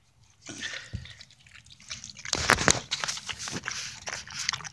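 A dog eating gravy-soaked leftovers from a metal bowl: wet smacking and chewing, with a louder burst about two and a half seconds in.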